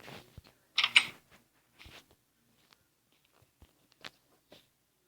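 Scattered, irregular clicks and taps with a short burst of rustling about a second in, the loudest sound.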